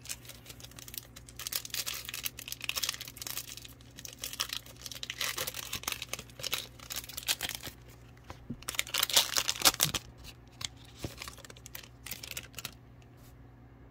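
A Donruss Optic football card pack's wrapper being torn open and crinkled by hand, in three stretches of crackling with sharp clicks over about ten seconds.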